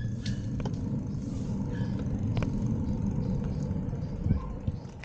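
Wind buffeting the microphone of a hand-held 360 camera as the bicycle rides along, a low, uneven noise, with a few light clicks and a brief louder knock about four seconds in.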